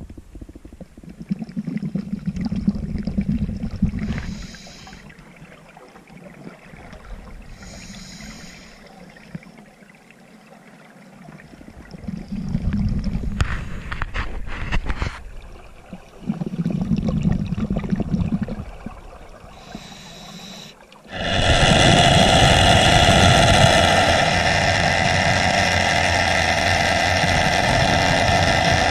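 Underwater recording of a scuba diver breathing through the regulator: low bubbling rushes of exhaled air every few seconds, with brief hisses of inhaling between them. About two-thirds of the way through, a loud, steady machine drone takes over abruptly.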